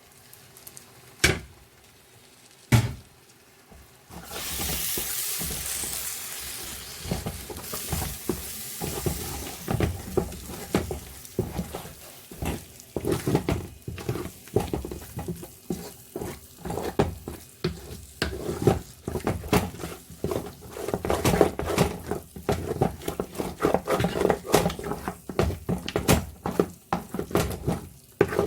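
Two sharp knocks, then food going into the hot pot sizzles loudly about four seconds in, followed by a spoon stirring and scraping against the pot in many quick strokes as the fresh pepper is cooked into the tomato base.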